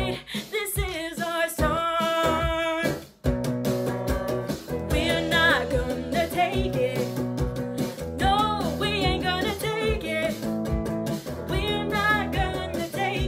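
A woman singing a rock song while strumming a Squier electric guitar, with a steady beat underneath. The music cuts out for an instant about three seconds in, then comes back fuller.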